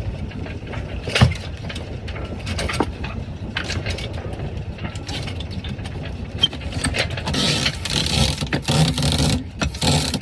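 A sailboat's motor running with a steady low rumble, with scattered clicks and knocks from the rigging and ropes being handled. From about seven seconds in, a louder rushing noise comes and goes in gusts.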